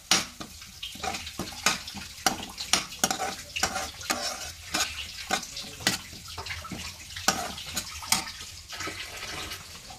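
A metal spoon stirring and scraping chopped onions frying in oil in a non-stick kadhai: irregular clinks and scrapes of the spoon against the pan over a faint sizzle.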